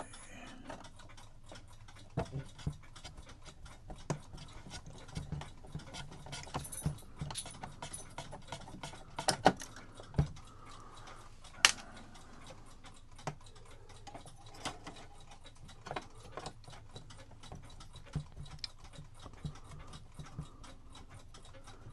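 Steady ticking of a clock, with scattered louder clicks and knocks of small metal parts and tools being handled on a workbench.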